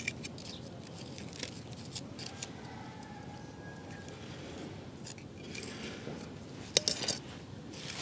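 Machete blade shaving and cutting a thin bamboo stick held in the fingers: scattered light scrapes and clicks, with a sharper click near the end.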